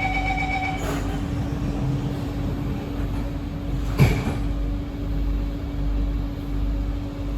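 Inside a C151B metro train: the door-closing chime beeps and stops about a second in, then a steady low hum and rumble carry on from the train, with one sharp knock about four seconds in.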